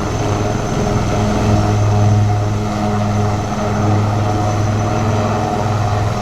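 Indian Army helicopter running steadily, a loud low engine and rotor drone.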